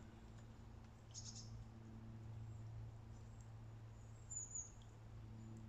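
Faint outdoor ambience: a steady low hum, with a few brief high bird chirps about a second in and again near four and a half seconds.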